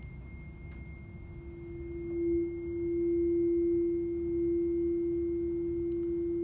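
341.3 Hz tuning fork ringing a steady pure tone over a glass resonance tube closed at one end, with a faint high overtone. About two seconds in the tone swells loudly and then holds: the air column in the tube has reached a quarter wavelength and is resonating.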